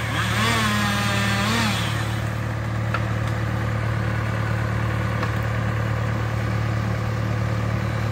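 Diesel engine of a Timberjack 240 boom-lift skidder idling steadily. In the first two seconds a pitched whine rises, holds and falls twice over it.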